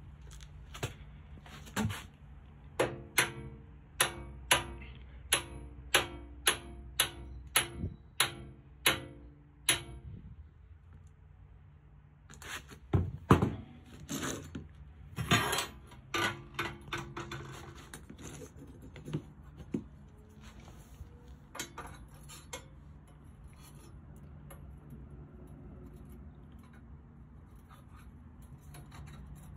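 Sharp metal-on-metal taps with a short ring, about two a second for roughly ten seconds, then a few louder clanks and scattered clicks, as steel tools are worked against a go-kart's steel tube frame; a low steady hum runs underneath.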